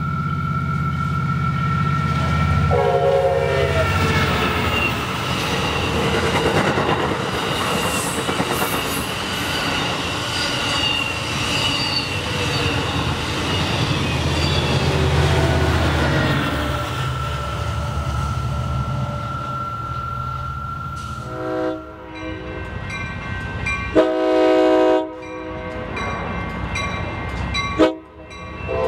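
Amtrak Surfliner passenger train passing: the diesel locomotive's engine rumbles and the wheels clatter over the rails for about twenty seconds. Then a multi-tone train horn sounds several loud blasts near the end.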